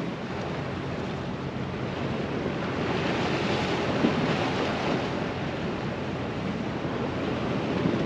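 Sea surf washing against a rocky shore, with wind buffeting the microphone; the surge swells a few seconds in.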